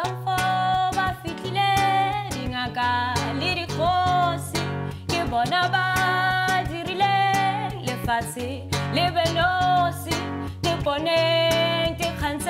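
Acoustic guitar strummed steadily behind a woman singing long, held notes that bend in pitch.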